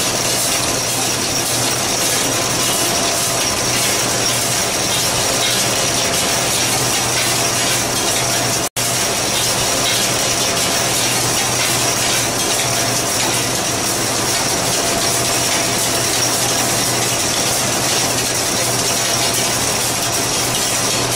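Copper rod take-up coiling machinery running as rod is laid into rings: a steady mechanical din with a low hum and a faint high whine. It drops out for an instant about nine seconds in.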